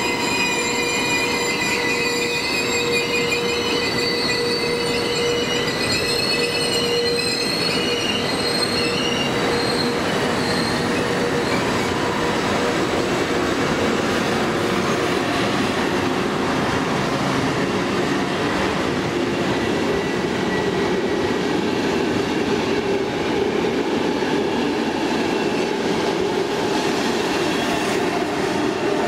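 Trenitalia Frecciabianca passenger train with an electric locomotive running past on the rails. For the first several seconds its wheels squeal in high, wavering tones; after that a steady rolling rumble of wheels on rail takes over.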